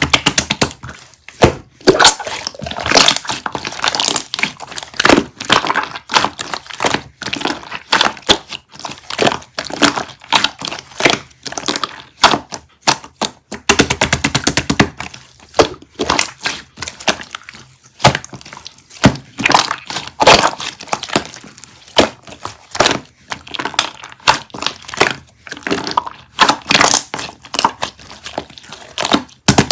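Rapid, irregular crackling and tapping: sharp clicks in quick clusters of several a second, with brief pauses between runs.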